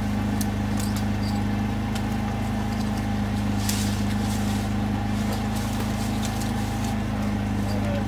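A steady low mechanical hum, like a motor or engine running at a constant speed, with a few light clicks over it.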